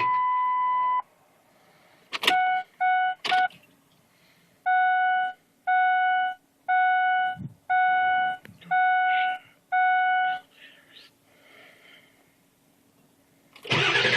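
The truck's dashboard warning chime. It sounds one steady tone of about a second, then two clicks with a few short beeps, then six even beeps about a second apart. Near the end the starter begins cranking the 7.3 Powerstroke diesel again.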